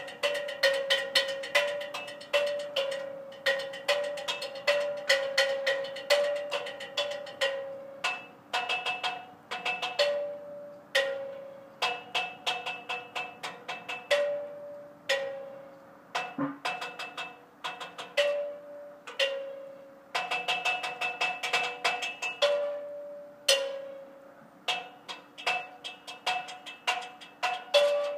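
A child drumming on an aluminium ladder with yard sticks: quick runs of ringing metallic strikes broken by short pauses, the ring shifting slightly in pitch from one run to the next.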